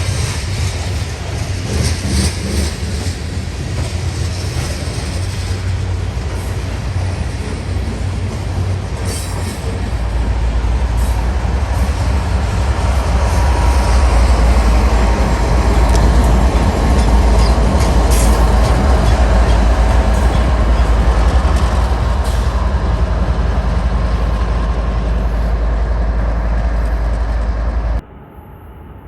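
Freight train passing close by: a steady rumble and rail clatter of the cars, growing louder about ten seconds in, then cutting off abruptly near the end.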